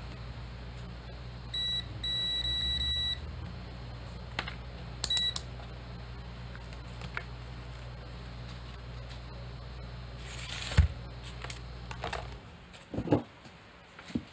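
Digital multimeter's continuity buzzer beeping as its probes touch a crimped ring terminal and wire: a short beep, a longer beep of about a second, then a brief double beep, signalling that the joint conducts. A low steady hum cuts off near the end, among handling knocks, the loudest a sharp knock about two-thirds of the way through.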